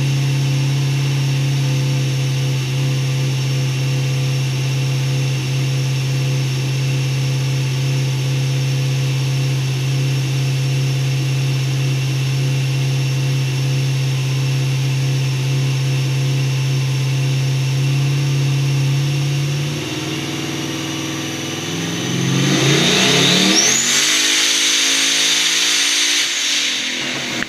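Car engine running on a chassis dynamometer. It holds a steady speed for about twenty seconds, eases off briefly, then revs up hard in a dyno pull over the last five seconds, with a high whine climbing alongside.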